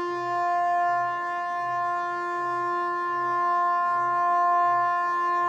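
Ship's horn sounding one long, steady blast at a single pitch. Under it is a low hum that pulses about twice a second.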